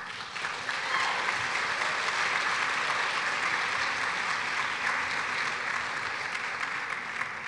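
Audience of a large banquet hall applauding, swelling over the first second, holding steady, then fading out near the end.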